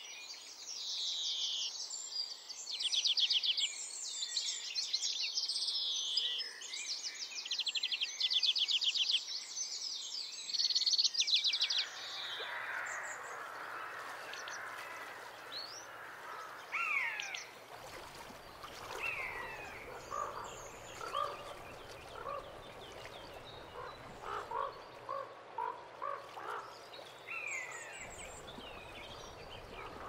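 Songbirds singing, with repeated rapid high trills overlapping one another. About twelve seconds in this gives way to scattered lower bird calls and short chirps, some sliding down in pitch.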